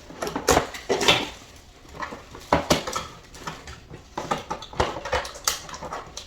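Cardboard box and packaging of a Revlon hair dryer being handled and pulled open, with irregular rustling, scraping and small knocks as the dryer and instructions are taken out.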